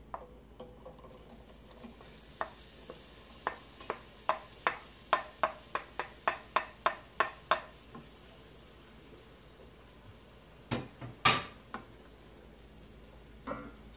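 Diced onion going into hot butter and olive oil in a stainless frying pan, with a faint sizzle. A quick run of light, ringing knocks, about three a second, as the onion is tapped off a cutting board into the pan. A couple of louder knocks near the end come from a wooden spoon hitting the pan as the onion is stirred.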